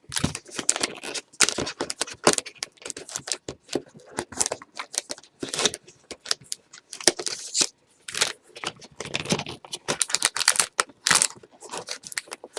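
Trading cards being handled and slid against one another: a quick, irregular run of papery clicks and rustles.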